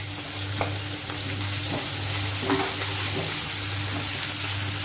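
Sliced onions sizzling in hot oil in a nonstick kadai, stirred with a wooden spatula that scrapes the pan a few times, about once a second.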